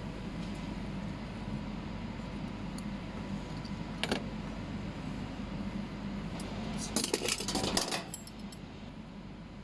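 Metal clamp parts and clips of heating-element terminals clinking as they are handled: one sharp click about four seconds in and a quick run of clinks around seven to eight seconds, over a steady background hum.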